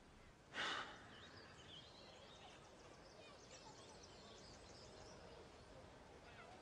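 A short breathy sigh, then faint outdoor ambience with scattered faint bird chirps.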